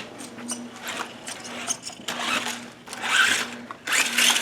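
Toy electric remote-control truck's motor and gears whining in short surges as the throttle is pulsed, with light clicks and knocks from the truck on the course.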